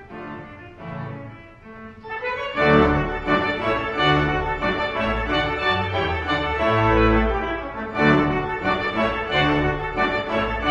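Background instrumental music with bowed strings: a soft passage swells into a fuller, louder section with deep bass notes about two and a half seconds in.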